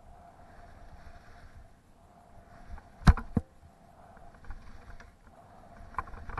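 Skis scraping and hissing over the snow in turn after turn, a stretch of hiss every second or so with quieter gaps between. Two sharp knocks close together about halfway through are the loudest sounds.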